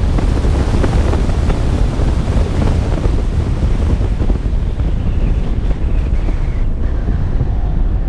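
Heavy wind buffeting the microphone of a camera mounted outside a moving Tesla Model 3, a steady low rumble with road noise underneath.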